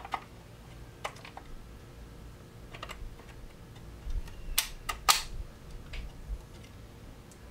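Rifle magazine being pushed into a wooden laminate stock's magazine well and latched by the magazine catch. A few light clicks come first, then a sharp cluster of clicks about four and a half to five seconds in as it seats.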